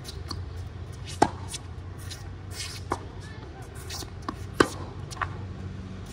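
Tennis ball being struck by racket strings and bouncing on a hard court during a singles rally: a string of sharp pops at uneven intervals, the two loudest about a second in and just past halfway. A steady low rumble runs underneath.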